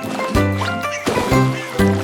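Instrumental children's song music with a steady beat.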